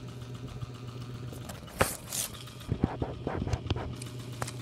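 Handling noise from a phone camera being grabbed and covered: a string of knocks and rubs on the microphone, the loudest about two seconds in, over a steady low hum.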